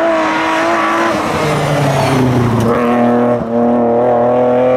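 BMW E30 rally car's engine passing close. Its note drops as it lifts off into the bend, then climbs steadily as it accelerates away, with a brief break about three and a half seconds in.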